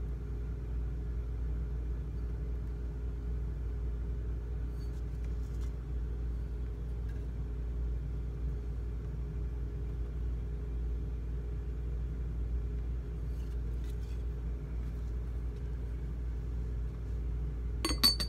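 Steady low background hum with a few faint handling taps. Near the end, the lid of a Lefton ceramic ginger jar clinks several times in quick succession as it is set onto the jar.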